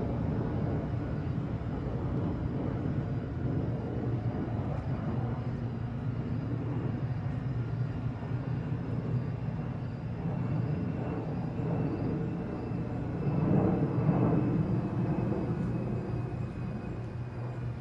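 A jet airliner passing overhead: a steady low rumble of its engines that swells about two thirds of the way through, with a faint high whine slowly falling in pitch.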